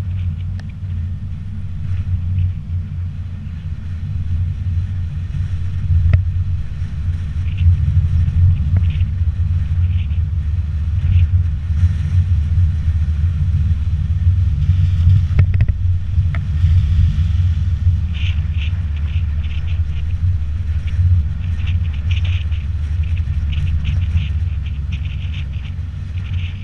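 Low, steady wind rumble on a GoPro's microphone as it travels along a road, with faint scattered high ticks.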